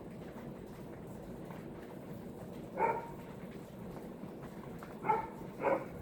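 A dog barks three short times, once about three seconds in and twice near the end. Under the barks is the steady low hum of a Hunter Original ceiling fan running.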